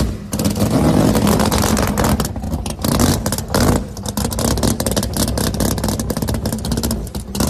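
Engine of a stripped-down drag car with an exposed engine and racing slicks, running loud and choppy as it drives across a lawn, with rapid sharp crackles and a level that rises and dips.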